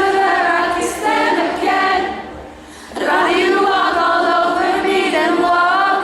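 Concert crowd singing together unaccompanied, many voices like a choir, in two phrases with a short break about two seconds in.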